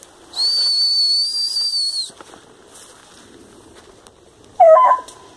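One long, steady high whistle by a person, lasting about two seconds, then near the end a short call, over faint rustling of brush.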